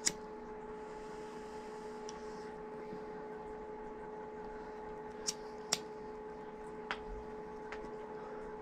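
Steady electrical hum with a faint hiss, broken by a few short sharp clicks from a handheld lighter being flicked, two of them close together about five seconds in.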